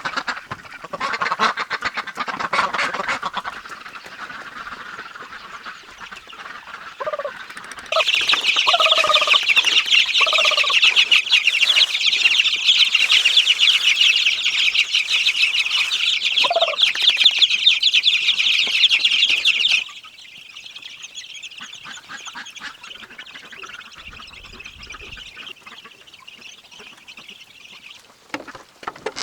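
Farm poultry calling, with short honking and quacking calls spaced out over the stretch. From about eight seconds in to about twenty seconds in, a loud, dense, high-pitched buzz sits over the calls, starting and stopping abruptly.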